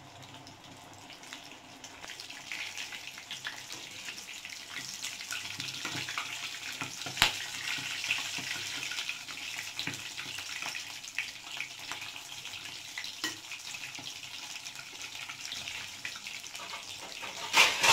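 Breadcrumb-coated bread rolls deep-frying in hot oil in a steel kadhai: a steady sizzle with scattered crackles that builds up over the first two seconds, with a sharp pop about seven seconds in and a louder burst of spattering near the end.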